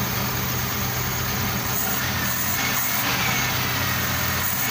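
Suzuki F6A three-cylinder engine of a multicab idling steadily, running on freshly fitted spark plugs that give a stronger spark than the old ones.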